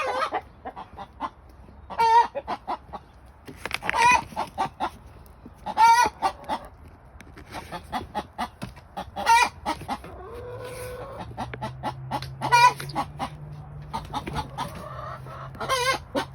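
Laying hens giving the loud post-laying 'egg song': a long squawk about every two seconds with rapid clucking between, the call a hen makes after she has laid an egg. A faint steady low drone joins in the second half.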